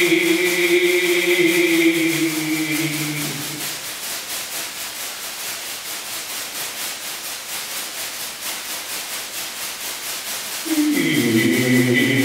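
A held, chant-like drone of low tones with a bright high band fades out about three seconds in. A quieter steady rustling hiss with a faint fast pulse is left, and the drone comes back near the end.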